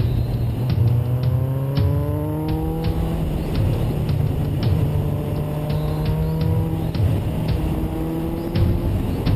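Suzuki Bandit motorcycle's inline-four engine running under way, its pitch rising three times as it accelerates. Heavy wind noise on the microphone and scattered sharp ticks run underneath.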